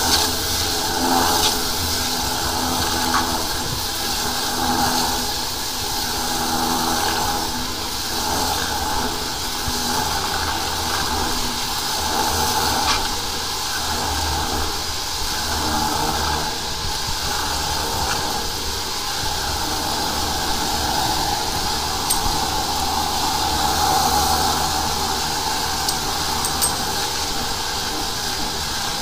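High-pressure sewer jetter running steadily: a low engine and pump hum under the hiss and rush of the water jet in the drain line.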